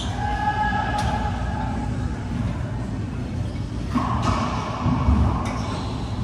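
Racquetball court during play: a few sharp knocks of the ball striking racquet and wall, spaced unevenly, over a steady low rumble of the enclosed court.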